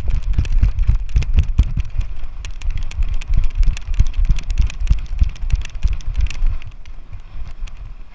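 Rapid, irregular thumps and rattling over a low rumble from a jostled GoPro action camera in motion, like a running dog's footfalls carried through the mount. It eases off about two-thirds of the way in.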